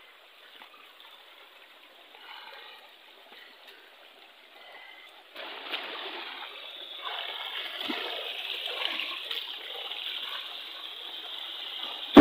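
River water flowing and splashing over rocks, faint at first and markedly louder from about five seconds in. A single sharp knock right at the end.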